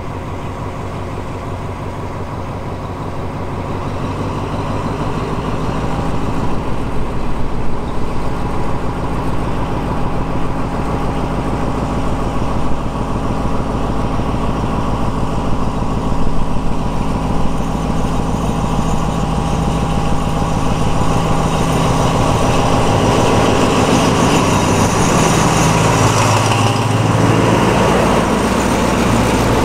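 Alsthom diesel-electric locomotive's engine running steadily, getting louder as the locomotive moves slowly up to and past close by near the end.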